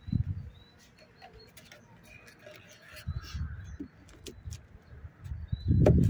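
A wooden hive body being set onto a beehive over a plastic sheet and shifted into place. Dull thumps and knocks come from the handling, the heaviest about six seconds in, with birds calling in the background.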